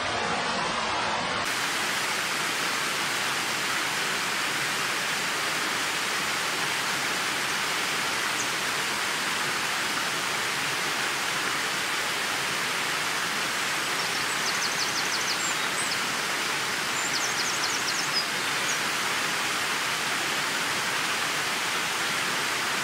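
Steady rush of a stepped waterfall cascading over rock ledges into a river pool. A few short, high chirps are heard past the middle.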